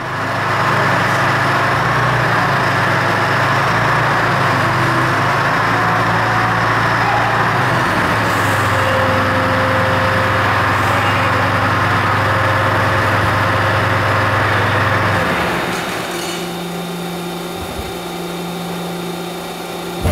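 Okuma Robusturn LFS15-2SP CNC lathe running with its spindle and chuck spinning: a loud, steady machine hum and whir. About fifteen seconds in, the running note changes and becomes quieter, then holds steady.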